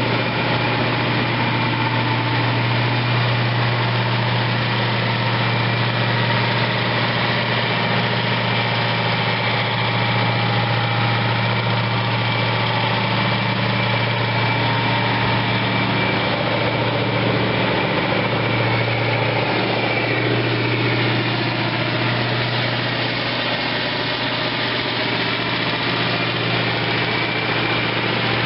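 Ford FW60 tractor's Cummins 903 eight-cylinder turbo diesel idling steadily.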